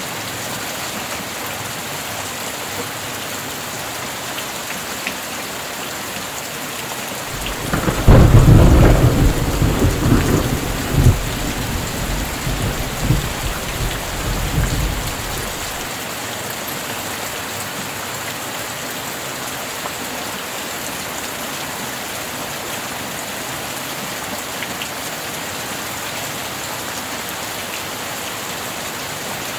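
Steady heavy rain throughout. About eight seconds in, a thunderclap breaks loud and rolls on for several seconds in two or three further surges before dying away.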